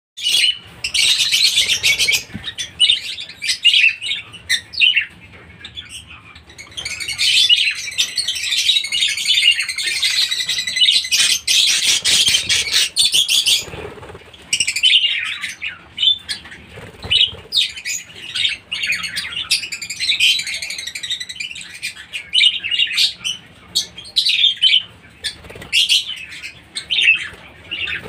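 A flock of budgerigars chattering and warbling: a dense stream of high chirps and squeaks with a few short lulls.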